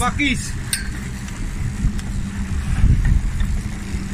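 Twin outboard motors running steadily as the boat moves, a low drone with the wash of the wake and wind buffeting the microphone in low thumps.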